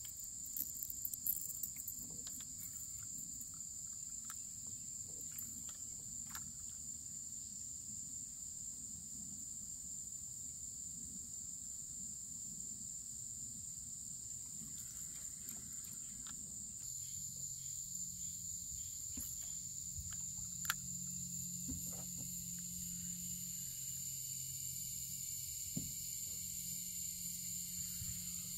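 Steady high-pitched chorus of insects, with scattered light clicks; a low hum comes in about two-thirds of the way through.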